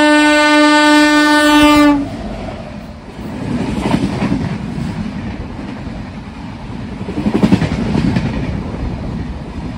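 An oncoming passenger express's locomotive horn sounds one long steady blast that stops about two seconds in. The train then rushes past close by: a loud rumble with wheel clatter over the rail joints as its coaches go by.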